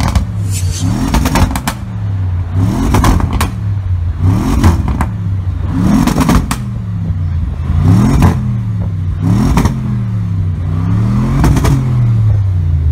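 Audi RS6 C7 Avant Performance's 4.0 V8 revved while parked, about seven quick throttle blips roughly every second and a half that rise and fall back to a steady idle. Sharp cracks from the exhaust come near the top of each blip.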